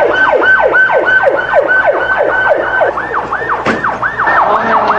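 Fire engine sirens wailing in rapid falling sweeps, about four a second. About three seconds in, a second siren joins with slower rising-and-falling sweeps that overlap the first.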